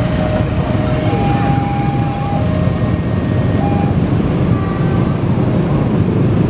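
Traffic at a railway level crossing: a steady low rumble of the train's tail passing and a crowd of motorcycle engines running as they move off across the tracks. Held tones at two alternating pitches sound over it during the first four seconds.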